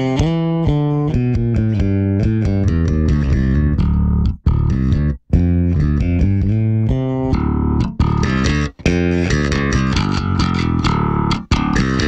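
Six-string Warwick Thumb NT 6 electric bass played through a Two Notes ReVolt Bass analog preamp pedal on its Classic Clean channel, with the cab sim off: a busy riff of quick notes, broken by a few short silences.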